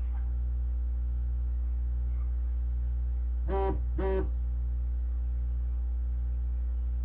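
Steady electrical mains hum. Two short vocal sounds from a man come a little past the middle.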